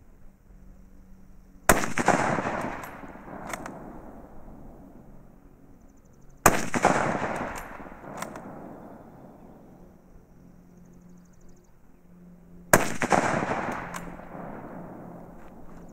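Three shots from a Mauser K98k rifle in 8mm Mauser, about five seconds apart, each followed by a long rolling echo that fades over a couple of seconds. Fainter clicks come between the shots as the bolt is worked.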